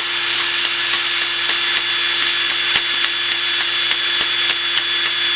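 A small electric rotary tool fitted with a wire brush runs at a steady speed, with frequent light ticks as the bristles scour old brass clean so that it will take solder.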